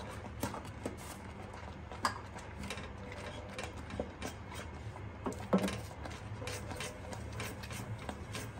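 Wooden spoon stirring thick phirni in a steel pan, knocking and scraping against the metal at irregular intervals, over a steady low hum.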